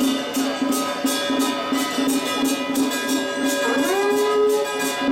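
Traditional ceremonial music: held wind-instrument notes over a steady beat of percussion strokes, about three a second, with a note sliding up a little before the end.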